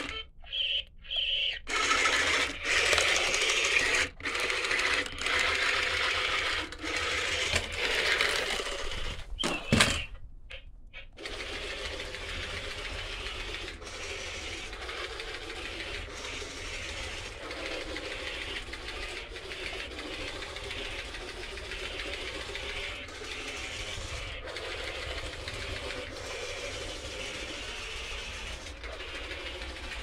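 DEERC D80 remote-control spider toy walking, its geared leg mechanism running as a steady mechanical whir with faint regular ticks. For about the first ten seconds a louder, ragged sound from the toy's own speaker plays over it, then cuts off abruptly.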